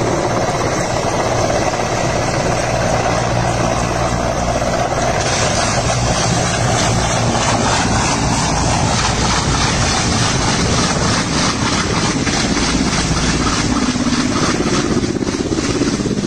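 Military transport helicopter coming in to land: loud, steady rotor and turbine noise, with the rotor blades' rapid, even beat growing clearer after about five seconds.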